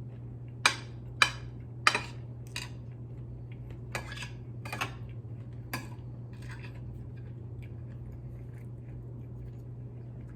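Sharp clicks and clinks of utensils against a plate or bowl, about seven in the first six seconds, the first three loudest, then only faint small ticks. A steady low hum runs underneath.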